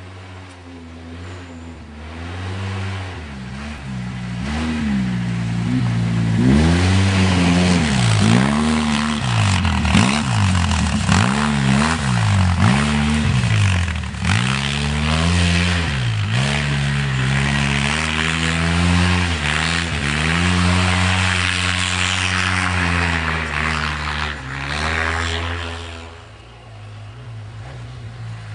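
Polaris RZR 800 side-by-side's twin-cylinder engine revving up and down over and over as it is driven hard through snow, with a rushing hiss over it through the middle. Near the end the engine note drops and steadies as it moves off.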